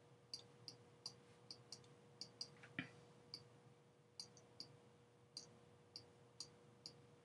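Faint, irregular light clicks of a stylus tapping and drawing on a tablet screen, over a faint steady hum.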